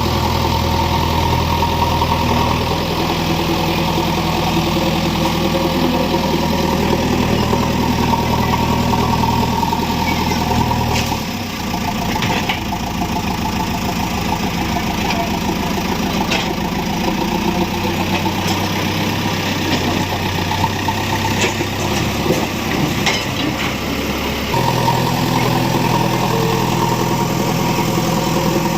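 JCB 3DX backhoe loader's diesel engine running steadily, its note shifting about eleven seconds in and settling back to the first steady note near the end, with a few sharp clicks or knocks in between.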